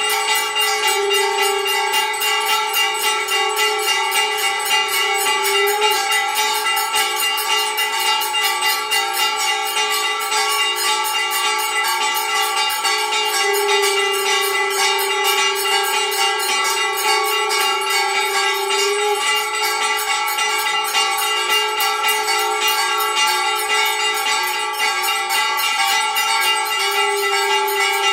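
Temple bells rung rapidly and without pause during an aarti, a dense, steady metallic ringing. A held lower tone sounds over the bells three times, for a few seconds each: once near the start, once in the middle and once at the end.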